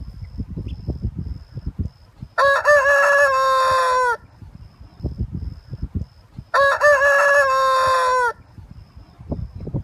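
Rooster crowing twice, each a long cock-a-doodle-doo of nearly two seconds that drops slightly in pitch at the end, with low uneven rumbling noise between the crows.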